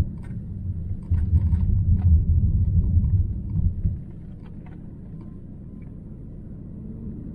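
Vehicle coasting downhill on a mountain road, a loud low road rumble heard from inside. About four seconds in the rumble drops to a quieter, steady low drone.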